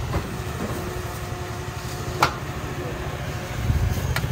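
An engine running with a steady, fast-pulsing low rumble and a faint steady hum, with one sharp click about two seconds in.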